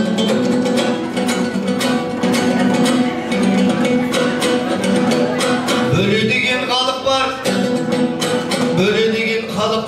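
Dombyra strummed in a quick, steady rhythm, with a voice singing a melody over it from about six seconds in.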